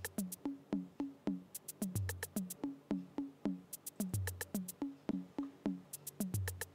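Lofi background music: a looped drum-machine beat with a deep bass note about every two seconds, short plucked notes several times a second, and a quick run of high hi-hat ticks once in each cycle.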